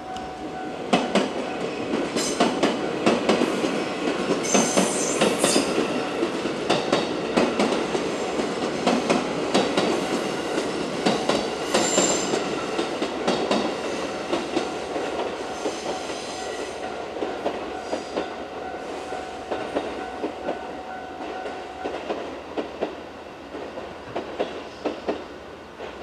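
Six-car JR West 221 series electric train passing over a level crossing, its wheels clicking rapidly over the rail joints. The crossing's warning bell rings steadily under it and stops a few seconds before the end.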